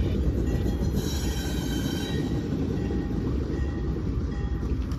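A train running on the rails: a steady low rumble with a faint high-pitched wheel squeal over it.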